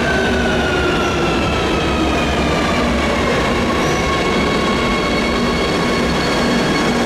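Metro de Madrid Line 2 train slowing into the station: the electric traction motors whine in several tones that fall steadily in pitch, over loud running noise from the wheels on the rails.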